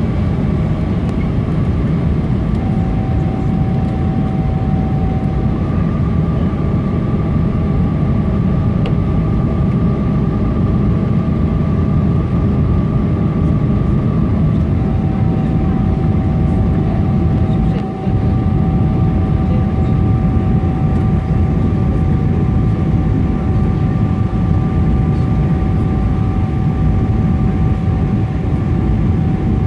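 Steady cabin noise inside a Boeing 777-300ER descending on approach with its landing gear down: a low rumble of airflow and engines, with two steady hum tones that come and go.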